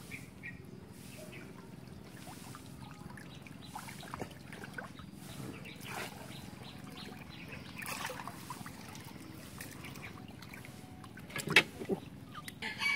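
Water trickling and dripping off a cylindrical mesh fish trap as it is lifted out of the river. There are a couple of sharp knocks near the end.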